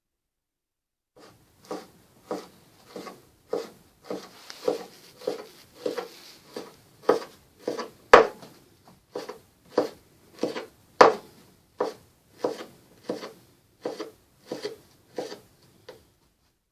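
Knife chopping raw pork leaf fat into small pieces for rendering into lard: a steady run of cuts, about one and a half a second, a couple of them sharper, louder knocks.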